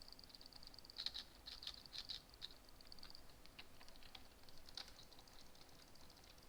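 Faint, quick clicks in small clusters, about a second in and again near five seconds, over a faint steady high-pitched whine.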